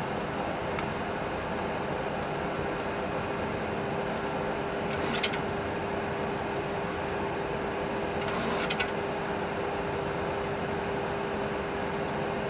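Steady cockpit noise in a Boeing 737 Classic full flight simulator on final approach: an even rushing hum with a steady low tone through it. There are a few brief clicks about five and eight and a half seconds in.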